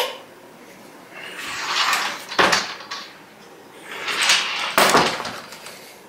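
Laundry closet doors being shut: a click, then two swishing door movements about two seconds apart, each ending in a sharp knock as the door closes.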